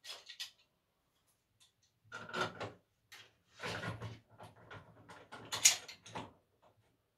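Irregular clunks, knocks and rattles of hands-on plumbing work: tools and metal fittings being handled while a tap is fitted. They come in about five short clusters, the loudest near the end.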